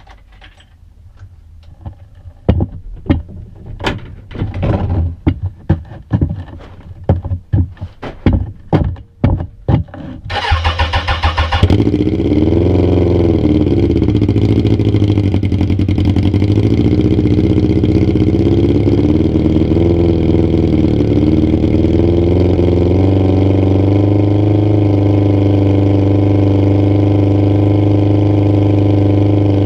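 Suzuki Bandit's inline-four engine with a straight-pipe exhaust being cranked, firing in irregular loud pops for about ten seconds before it catches. It then settles into a loud, steady idle, its revs wavering at first and rising slightly later on.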